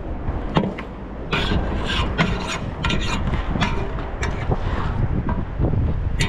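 Irregular scraping and rubbing handling noise, with clusters of short scrapes coming every fraction of a second from about a second in, over a steady low wind rumble on the microphone.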